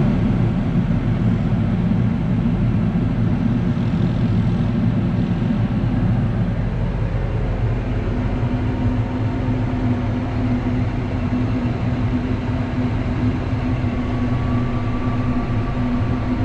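Tractor engine running steadily under load, a low even drone; a steady hum in it grows stronger about halfway through.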